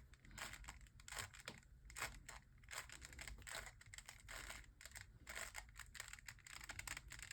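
Faint clicking and clacking of a 3x3 Rubik's cube's plastic layers being turned in quick, irregular moves while an algorithm is performed.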